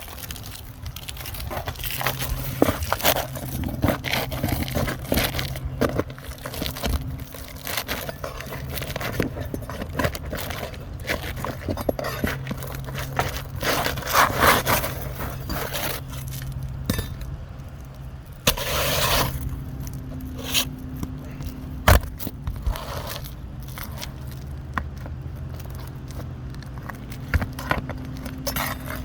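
Irregular scraping, clicking and clinking, with a longer scrape about two-thirds of the way through and a sharp knock soon after, over a steady low hum.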